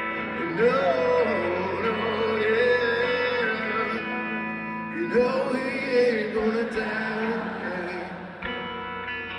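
Rock band playing live: guitars hold chords under a sliding melody line that comes in two phrases, a few seconds each.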